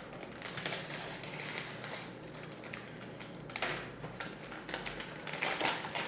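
Scissors cutting open a brown paper mailer envelope: a quick run of small snips with paper crinkling. Near the end the paper rustles louder as a box is pulled out of it.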